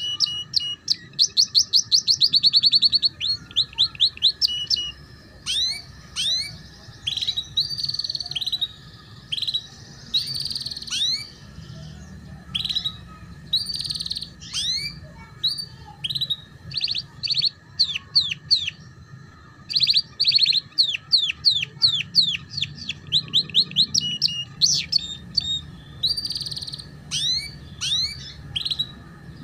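Domestic canary singing a long song of rapid trills and fast rising and falling notes in runs, with short pauses between them. It is the chattering ngeriwik style used as a training song for young canaries.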